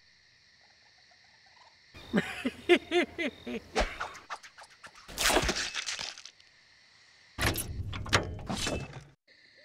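A man laughing in several loud, breathy bursts, starting about two seconds in, over a steady chirring of crickets.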